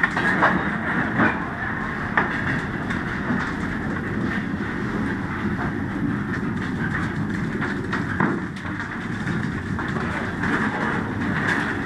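Aluminium coal hopper cars rolling slowly past at close range: a steady rumble of steel wheels on rail with scattered clicks and clanks from the wheels and trucks.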